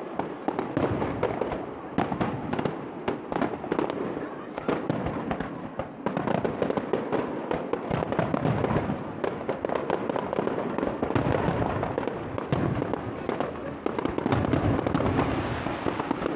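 Aerial fireworks display: a dense, unbroken barrage of shell bursts, many sharp bangs in quick succession with crackling between them.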